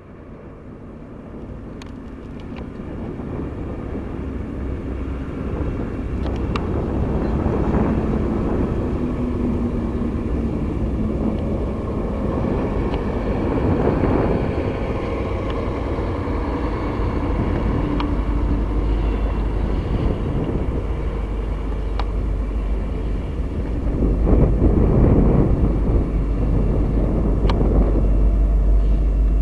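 Rail yard ambience: diesel locomotive engines running steadily in the yard, picked up by a camcorder's built-in microphone with poor sound quality. A deep rumble grows much stronger in the last third, with a few sharp clicks along the way.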